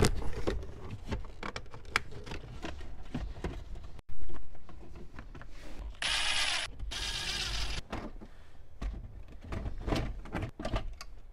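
Plastic dash and console trim panels of a Toyota Camry clicking and knocking as they are handled and snapped into place, with a loud knock about four seconds in. A cordless drill/driver whirs for about two seconds past the middle, driving in a trim screw.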